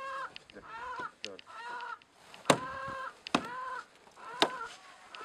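Chickens squawking and clucking in a string of short calls, several a second. Three sharp knocks sound about halfway through and are the loudest sounds.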